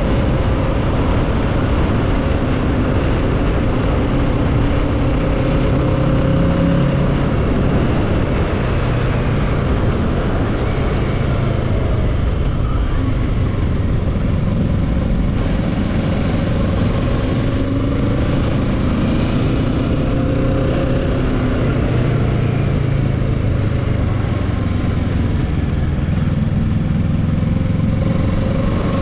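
2022 Kawasaki Z650's parallel-twin engine running under way, its pitch drifting gently up and down with the throttle, over a steady rush of riding noise.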